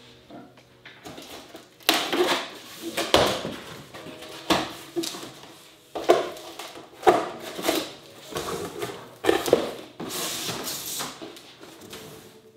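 Cardboard shipping box being cut open with a utility knife and its flaps pulled apart: a series of irregular rips, scrapes and rustles of cardboard and packing tape, with a longer rustle near the end.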